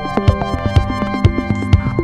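Background music: an electronic track with a synthesizer melody over a steady drum beat.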